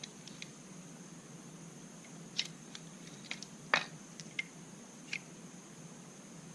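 Small plastic parts of a trimmer head being handled and taken apart: scattered light clicks and taps, about eight in all, with one sharper click a little past halfway.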